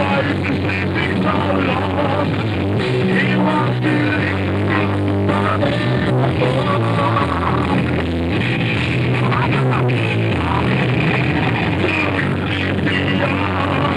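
Rock band playing live, an electric guitar over bass and drums, continuous and loud.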